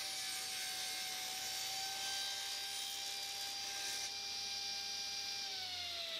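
Table saw running with a steady whine while a block of celery top pine is crosscut, the pitch sagging slightly as the blade takes the cut. About five and a half seconds in the whine starts falling in pitch as the blade spins down.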